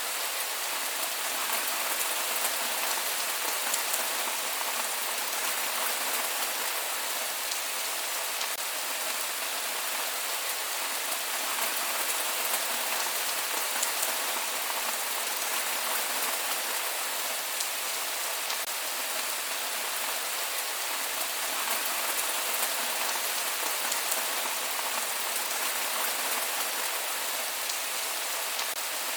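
Steady rain falling on a surface, an even hiss with many fine drop patters and no thunder.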